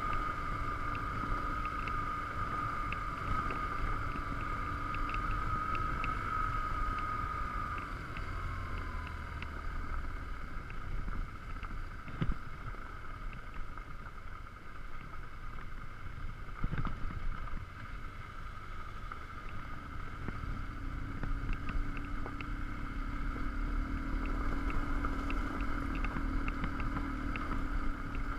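BMW R1150GS Adventure's boxer-twin engine running while the bike rides a gravel track, with tyre and wind noise. A high steady whine falls in pitch about eight seconds in as the bike eases off, with two knocks midway and faint ticking throughout.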